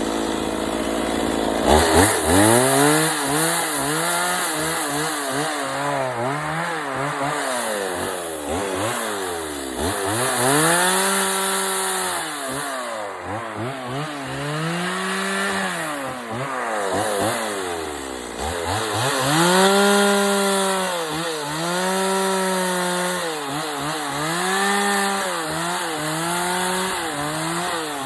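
Chainsaw idling for about the first two seconds, then revved up and down over and over as it cuts into the wooden block to rough out a carved bear's front legs.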